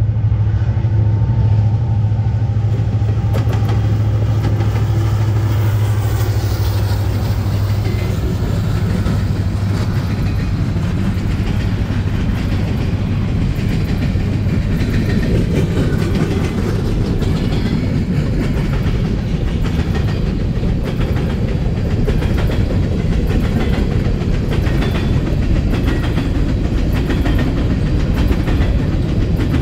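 Freight train passing close: the lead diesel locomotives' engines drone steadily for roughly the first ten seconds, then the coal hopper cars rumble by with a rhythmic clickety-clack of wheels over the rail joints.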